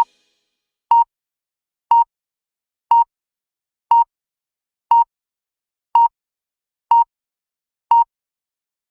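Countdown timer's final-seconds beeps: a short, single-pitched electronic beep once a second, with silence between beeps, counting down toward zero.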